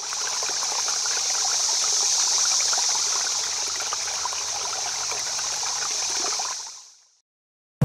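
Running water, a steady trickle, fading in at the start and fading out about six and a half seconds in.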